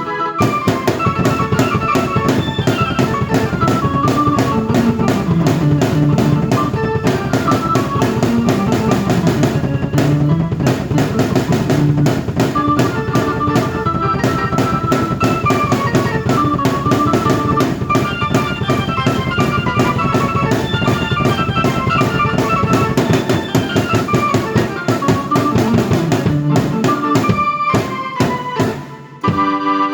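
Drum kit and keyboard played at the same time, with steady drumming under a melody line and bass. The music drops off briefly near the end, then comes back in.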